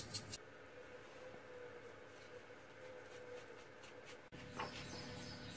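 Metal spice shaker shaken over chopped foie gras in a plastic chopper bowl: a quick run of light ticks that stops within the first half second. A fainter run of shaking ticks follows a couple of seconds later, then a single knock near the end.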